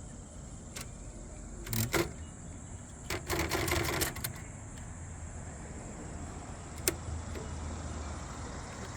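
1947 Royal KMM manual typewriter being handled: a few sharp mechanical clicks and, about three seconds in, a rattling clatter lasting about a second.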